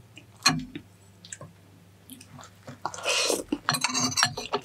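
Close-miked eating of La Paz batchoy noodle soup: a single sharp click about half a second in, then chewing from about three seconds on.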